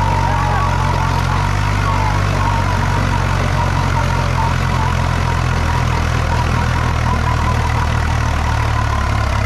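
Mahindra Thar's 2.2-litre diesel and a Swaraj 735 XG tractor's diesel engine both running steadily under full load in a tug of war, their wheels spinning in loose dry dirt.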